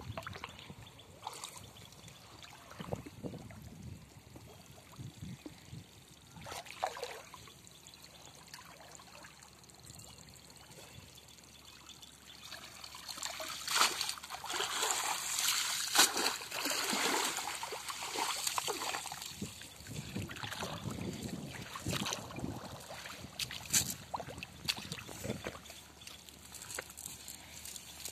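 Water splashing and sloshing as a wet cast net is hauled in through shallow water, with short splashes throughout and the loudest stretch about halfway through.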